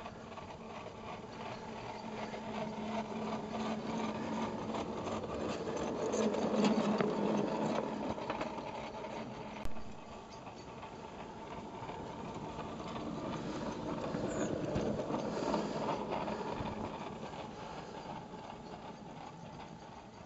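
Battery-electric garden railway locomotive running on its track while pushing a snow plough through snow: a steady electric motor hum with wheel-on-rail noise. It grows louder as the train passes close, about six to seven seconds in and again around fifteen seconds in, then fades. A single sharp click comes about ten seconds in.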